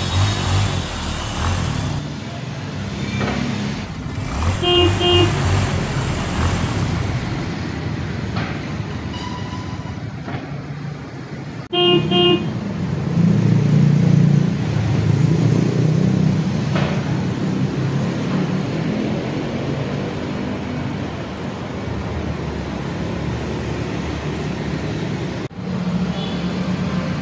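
Road traffic with vehicle engine noise, and short car-horn toots about 5 seconds in and again about 12 seconds in.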